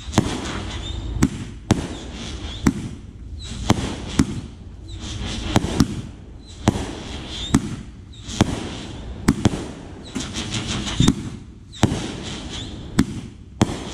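Consumer aerial fireworks launching and bursting overhead: a run of sharp bangs, about one or two a second, with hissing and crackling between them.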